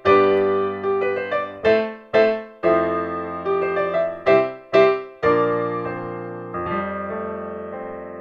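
Closing keyboard music in a piano sound: a gentle melody of struck notes over chords, ending about six and a half seconds in on a held chord that slowly dies away.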